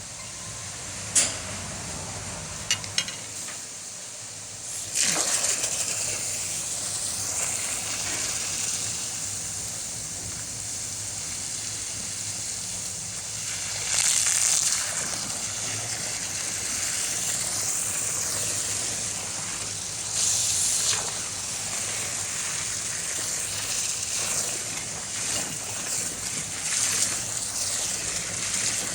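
Water rushing and sloshing in a water-treatment clarifier tank as it is flooded to float the clarifier beads over. The rush swells at about five, fourteen and twenty seconds in, and a few sharp clicks come in the first three seconds.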